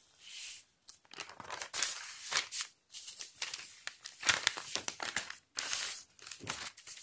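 Sheets of chart paper being handled on a clipboard: lifted, moved and laid down, rustling and crinkling in irregular bursts, loudest about four seconds in.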